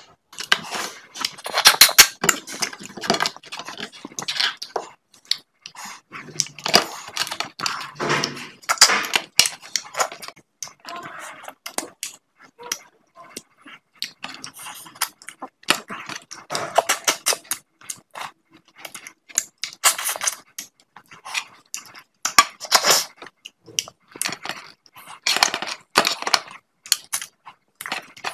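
Close-miked eating of a fried fish head by hand: irregular bursts of wet chewing, lip smacking and crackly crunching, with fingers pulling the head apart between mouthfuls.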